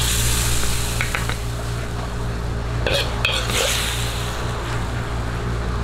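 Metal ladle scooping braised chicken out of a wok, with a few short clinks and scrapes against the wok about a second in and again around three seconds in. Under it runs a steady low mechanical hum from the kitchen range.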